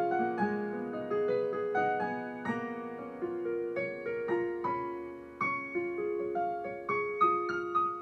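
Solo piano playing a slow improvised piece: single notes and chords struck a few times a second and left to ring and fade.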